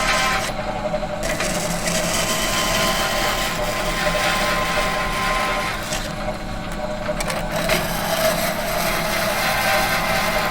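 Metal machine running with a steady multi-tone hum over mechanical rattle and hiss, the high end briefly dropping away twice.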